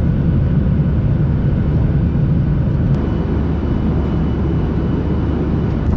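Passenger airliner's steady engine and airflow rumble, heard from inside the cabin. A faint thin high tone joins about halfway through.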